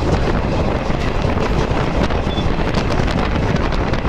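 Gondwana Express train running at speed, heard from aboard: a steady rumble of wheels on the track with wind buffeting the microphone.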